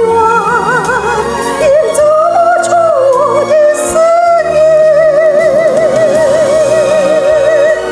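A woman singing a slow Chinese song with strong vibrato, the phrase ending on a long held note with wide, even vibrato that stops just before the end.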